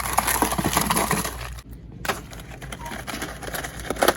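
Crinkling and clicking of small packets being handled, in two stretches with a short pause in the middle.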